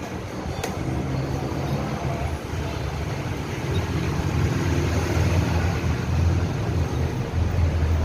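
Low, steady rumble of a motor vehicle engine, growing louder from about halfway through, with a single click just under a second in.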